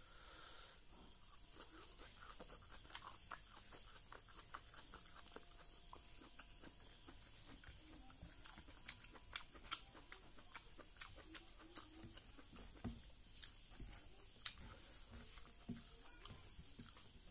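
Close-up eating sounds: irregular wet chewing and lip-smacking clicks as rice and fish curry are eaten by hand, a few louder smacks about halfway through. A steady faint high hiss runs underneath.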